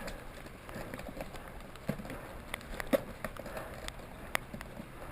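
Scattered sharp clicks and knocks, about five over a few seconds, over a faint rustling noise.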